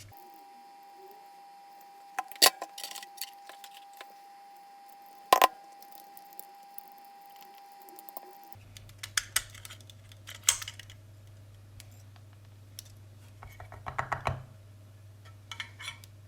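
Scattered clicks, taps and a few sharper knocks of small hard plastic and metal parts being handled as a smart plug's circuit board is taken out of its housing. A faint steady tone sounds through the first half.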